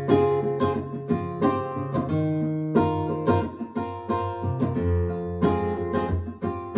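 Acoustic guitar music played back through 1990s Mission 701 bookshelf speakers: a quick run of plucked notes over held bass notes.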